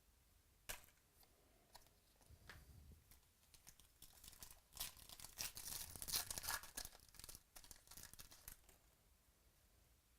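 A trading-card pack wrapper being torn open and crinkled by hand: a sharp click early on, then a dense run of crackling and tearing from about four seconds in that is loudest around the middle and dies away near the end.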